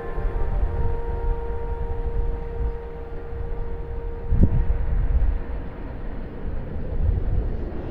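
Wind buffeting the microphone as an uneven low rumble, under the last held note of background music, which fades out over the first six seconds or so. A single brief knock comes about four and a half seconds in.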